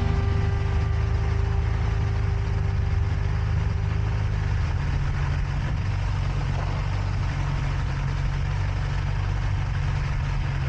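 An engine running steadily at a constant speed: a low, even drone with no change in pitch.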